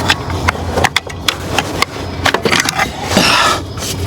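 Scattered sharp clicks and knocks of tools and parts being handled while an alternator is worked out of a van's engine bay, over a steady low rumble of wind on the microphone, with a brief hissy swell about three seconds in.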